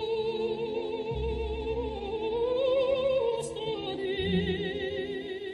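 Background music with operatic singing: a voice holds long wavering notes, one rising to a peak near the middle, over low swells about a second in and again near the end.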